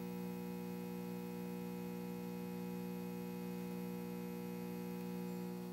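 ADB CCT thyristor constant current regulator humming steadily while it runs at its highest brightness step, putting out about 6.6 amps into the load.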